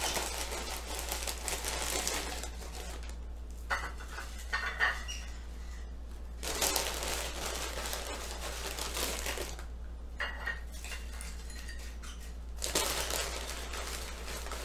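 Potato chips poured from a crinkly plastic bag onto ceramic plates: the bag rustling and the chips clattering onto the plates in several pours, with short clicks in between.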